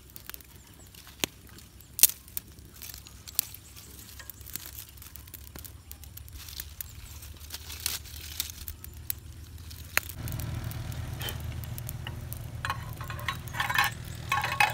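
Wood cooking fire crackling, with scattered sharp pops and clicks. About ten seconds in, a low steady hum starts under it.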